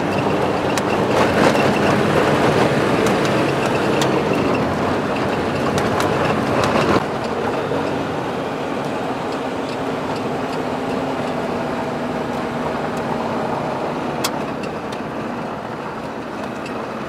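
4x4 patrol car driving up a gravel mountain track, heard from inside the cab: engine running with tyre rumble and scattered clicks of loose stones. The noise is rougher and louder at first, then settles to a quieter, steadier hum about seven seconds in.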